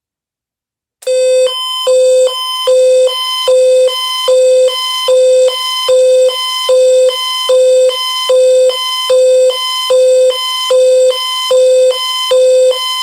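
Pulsing electronic alert tone of an emergency alert broadcast: buzzy beeps, about 1.3 per second, starting about a second in. It repeats steadily between readings of an Amber Alert message.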